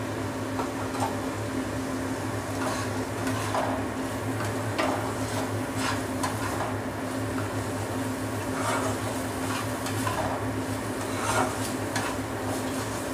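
Spatula scraping and stirring poppy-seed and green-chilli paste frying in mustard oil in a kadai, with a light sizzle. The scrapes come irregularly, about once a second, over a steady low hum.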